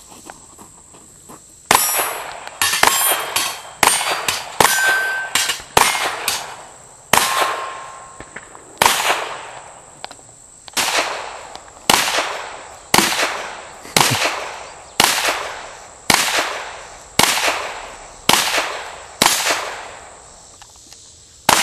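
A string of about twenty gunshots. A quicker cluster comes first, then they settle to roughly one shot a second. Each shot is followed by a metallic ring, as of a struck steel target.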